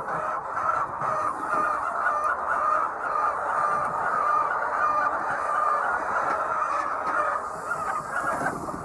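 A large flock of laying hens clucking and calling together, a dense, steady din of many overlapping voices.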